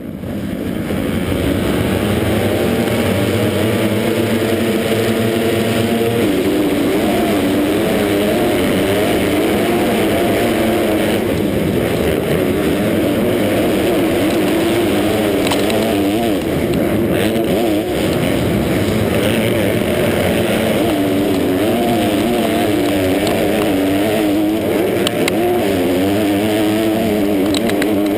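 A pack of 250-class four-stroke motocross bikes racing at full throttle, heard from a camera mounted on one bike, its own engine loud and close. The engine note is held steady for the first several seconds, then rises and falls with revving and gear changes.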